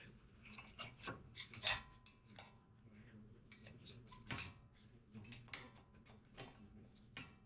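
Old front brake pads being pried out of a Ford Bronco's caliper bracket with a screwdriver: faint scattered scrapes and clicks of steel on steel, the sharpest a little under two seconds in and again just past four seconds.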